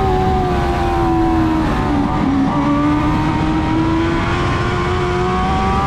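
Dwarf race car engine running hard at high revs. Its pitch drops briefly about two seconds in, then climbs back as it accelerates again.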